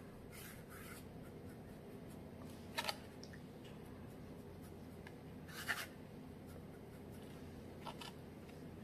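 Faint scratchy swishes of a flat paintbrush stroking a thin acrylic wash onto textured canvas, three brief strokes about three seconds apart, over a low steady room hum.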